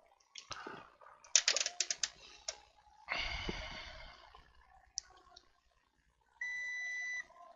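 Digital multimeter being readied, with a quick run of sharp clicks and some handling rustle. Near the end comes one steady continuity beep of under a second, as the probes find a connection on the iPad mini's backlight circuit.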